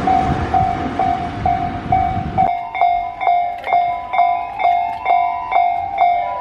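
Railway level crossing warning bell ringing steadily at about two strokes a second while a train runs past. The train's rushing noise cuts off suddenly about two and a half seconds in, leaving the bell ringing alone.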